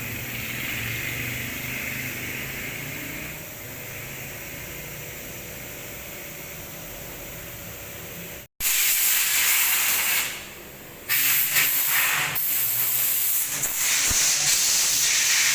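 CNC milling machine running with a steady hum and faint tones. After a sudden break about eight and a half seconds in, a loud spraying hiss starts, stops for about a second, then carries on.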